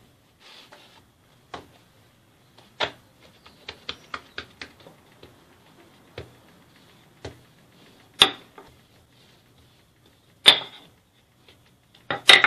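Wooden rolling pin knocking and clacking against a stone worktop as laminated croissant dough is rolled out: scattered sharp knocks with a run of light ticks, the three loudest coming about eight, ten and twelve seconds in.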